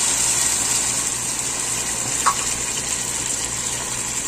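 Pineapple juice being poured in a stream into a pan of cooking chicken and potatoes, a steady splashing pour, with one short clink about two seconds in.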